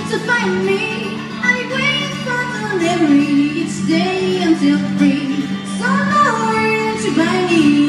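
A woman singing live into a microphone, accompanied by an acoustic guitar; the sung line glides and holds notes throughout.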